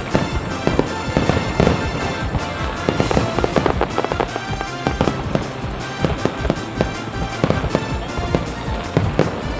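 Aerial firework shells bursting in quick, continuous succession, several bangs a second, with music playing alongside.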